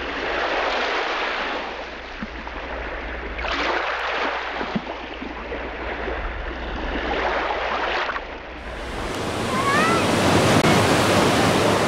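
Sea waves surging and washing in a steady rush, swelling about three and a half seconds in and again near eight seconds, with a few short rising chirps near the end.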